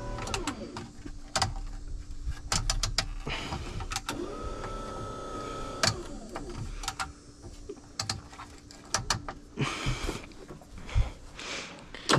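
MotorGuide electric trolling motor running on 12 volts, a steady electric hum with a brief higher whine a little after four seconds in. Sharp clicks and knocks come and go throughout.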